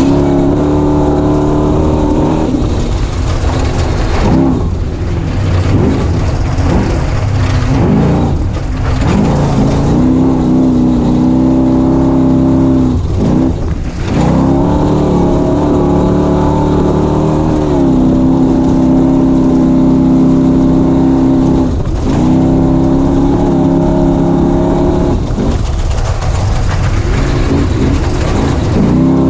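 Race vehicle's engine running hard, holding a steady high pitch for stretches and dipping briefly each time the throttle is lifted, about every few seconds, over a constant low rumble.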